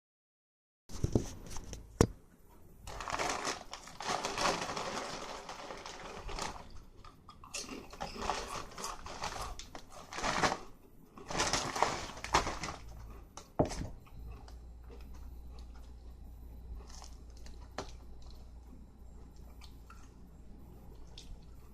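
Knocks as the camera is handled and set down, then a plastic bag rustling and crinkling in several long bursts. After that a low steady hum with a few light ticks.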